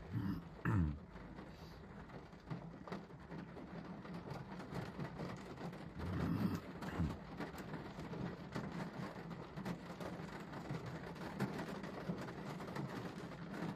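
Rain falling on a car's windshield and roof, heard from inside the car as a steady wash with many small drop hits. Two brief louder sounds with a gliding pitch stand out, one about a second in and one around six to seven seconds in.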